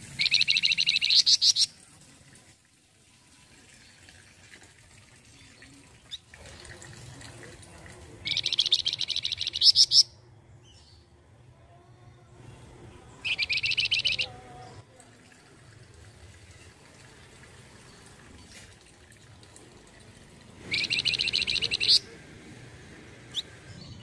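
Caged flamboyan songbird singing: four short, loud, rapid trills of quickly repeated high notes, each one to two seconds long and several seconds apart.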